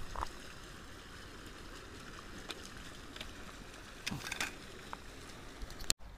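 Faint outdoor background noise, a steady low hiss, broken by a few scattered light clicks and scrapes, a small cluster of them about four seconds in, and one sharp click near the end.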